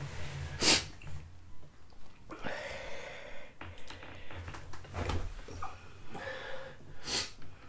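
A man breathing hard from the burn of an extremely hot chili chip, with two sharp hissing breaths, about a second in and near the end, and heavy breathing between.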